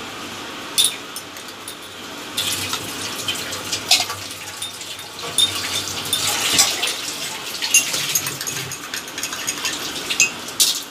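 Teaspoon stirring sugar into cups of tea, clinking sharply against the china again and again, over a swish of liquid.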